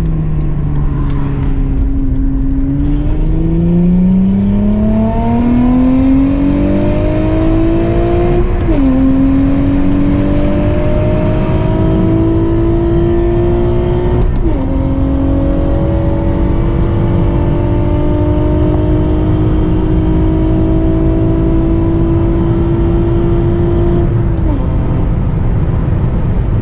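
Acura TL's V6 at full-throttle acceleration, heard from inside the cabin, its exhaust loud and open from a busted flex pipe, much like a muffler and resonator delete. The revs sag briefly, then climb hard, drop sharply at an upshift about nine seconds in, climb to near redline again, drop at a second upshift about halfway, then rise slowly and hold high before falling away near the end.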